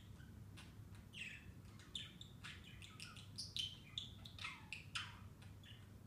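Pet budgerigar chirping and chattering softly, a string of short, scattered high chirps.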